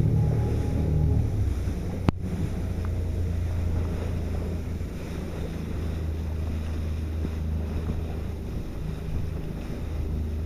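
Wind buffeting the microphone over rushing, splashing water from boats moving fast across choppy sea, with a steady low rumble. A tune fades out in the first second or so, and there is one sharp click about two seconds in.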